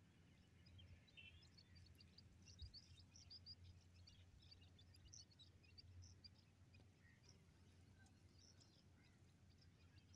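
Faint, rapid high peeps of newly hatched quail chicks in the nest, thickest in the first half, over a low steady rumble.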